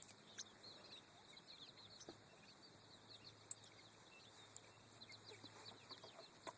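Near silence with faint, rapid bird chirping in the background and a few small clicks.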